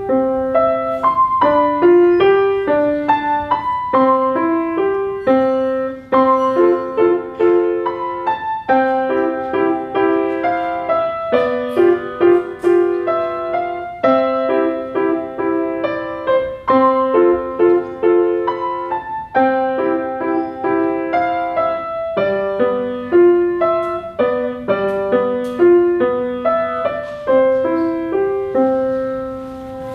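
Solo piano playing a gentle classical student piece: a melody over repeated broken-chord figures in the middle register, ending on a held note that fades away.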